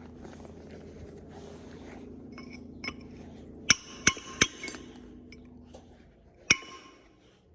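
Metal tools or parts knocking together: about five sharp metallic clinks that ring briefly, over a low steady hum that dies away near the end.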